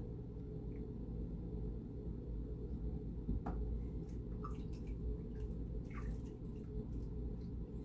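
Bathwater in a plastic infant tub lapping and dripping, with a few small splashes as a hand scoops and pours water over a newborn, over a steady low hum.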